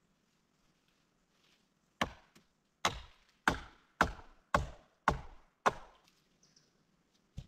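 Wood being chopped: seven sharp blows in a row, just under two a second, starting about two seconds in. A faint single tap follows near the end.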